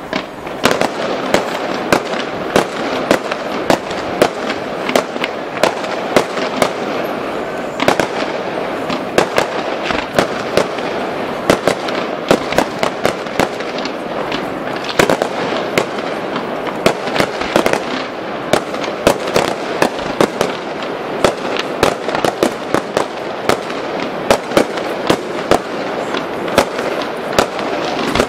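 Fireworks display: shells bursting in many sharp bangs and crackles, a few each second without let-up, over a steady background rumble of noise.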